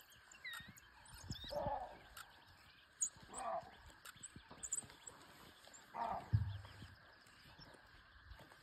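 A pack of African wild dogs at a kill, giving a few faint, short calls spaced a couple of seconds apart, with a low thud just after the last one.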